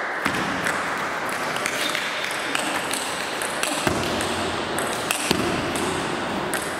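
Table tennis rally: the ball clicks sharply off the bats and the table, about two to three hits a second, over a steady background hiss.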